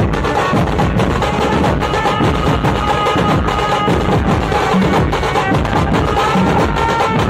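Dhumal band drumming: large barrel drums (dhol) and smaller waist drums beaten with sticks in a fast, dense rhythm, with a high melody line of held notes over the drums.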